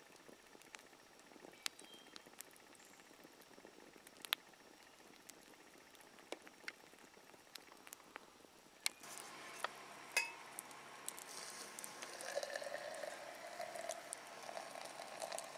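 Campfire crackling quietly, with scattered sharp pops. After about nine seconds the sound changes, and coffee is poured from an Espro ultralight coffee press into a metal cup in a steady pour.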